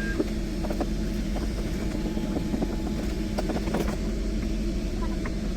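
Steady low hum of machinery, typical of the air-conditioning noise inside a parked airliner's cabin, with scattered light clicks and taps of hand tools on lavatory door hardware being taken apart.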